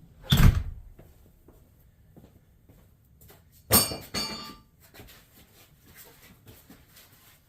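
Metal suspension parts being handled: a heavy knock, then about three seconds later a ringing metallic clank, followed by light taps and scrapes.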